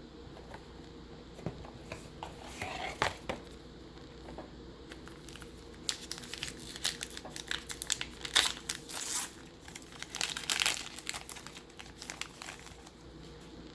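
A trading card pack's wrapper being torn open and crinkled: a short spell of crinkling about two to three seconds in, then a longer run of crinkling and tearing from about six to twelve seconds.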